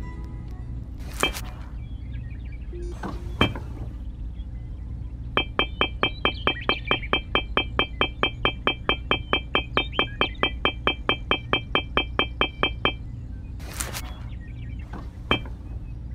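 Miniature clay bricks clicking as they are set down in a ring. A few single knocks, then an even run of about four clicks a second for roughly seven seconds, each with a bright ring.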